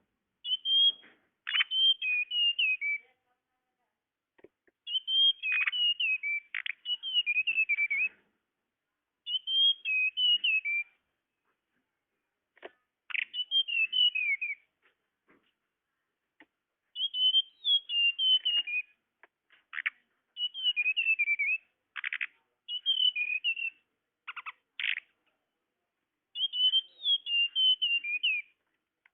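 Flowerpecker (tledekan) song used as a lure call: repeated phrases of high, quick twittering notes that slide downward, each a second or two long, mixed with sharp clicking chip notes and separated by short silences.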